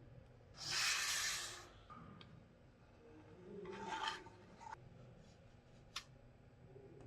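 Two rasping rub or scrape strokes, the first louder and about a second long, the second shorter and softer, then a single sharp click near the end.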